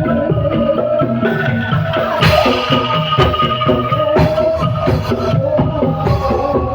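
Bamboo angklung ensemble playing a pop tune over a steady rhythmic beat, with a brighter crash-like hit about two seconds in.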